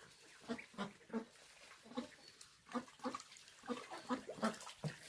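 A farm animal making about a dozen short, low calls in quick, irregular succession.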